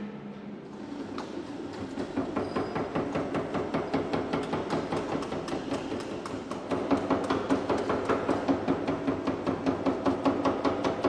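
Power hammer rapidly striking a sheet-metal body panel held between its dies, a fast even rattle of about five blows a second. It starts about half a second in, and the blows grow louder about two-thirds of the way through as the panel is worked.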